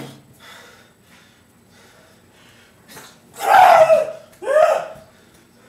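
Two short, loud shouted yells from a person's voice, one right after the other about three and a half seconds in: karate shouts.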